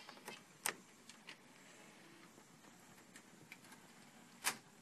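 Light clicks from buttons being pressed on the front panel of a Bang & Olufsen Beocord VX5000 VHS recorder: a few in the first second or so, then a louder click near the end.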